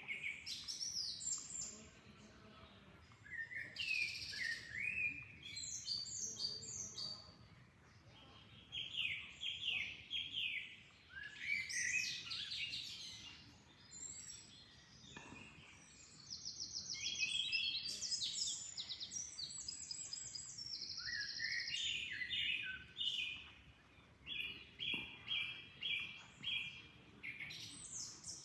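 Songbirds singing in short phrases of chirps and whistles every few seconds, some phrases made of quickly repeated notes.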